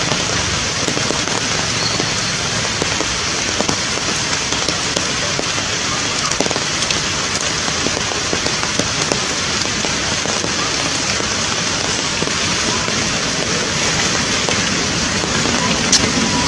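A steady, even rushing hiss like heavy rain, unchanged in level throughout, with a few faint, short high squeaks.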